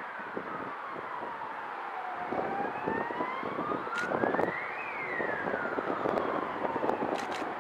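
Emergency vehicle siren in a slow wail. It falls in pitch, rises to a peak about halfway through and falls again, over a low background rumble.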